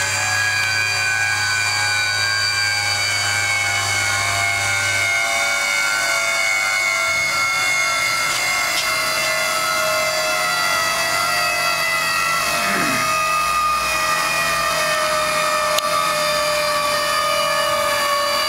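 Water-cooled CNC router spindle running with a steady, high, many-toned whine that slowly falls in pitch, with machine noise under it.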